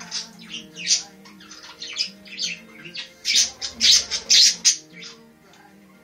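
Budgerigar squawking in a run of short, sharp, high calls, thickest and loudest from about three to four and a half seconds in. Music with steady low notes plays underneath.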